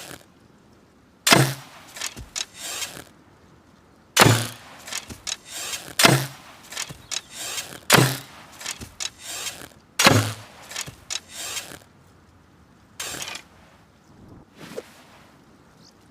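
Hunting bow being shot: five sharp shots about two seconds apart, each with a short low thump and followed by a brief rattle of smaller clicks, then two fainter sounds near the end.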